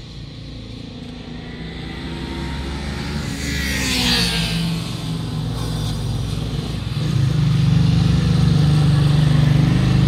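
Motorcycle engine running on a race track, growing steadily louder, with a brief hissing rush about four seconds in and a louder, steady engine note from about seven seconds on.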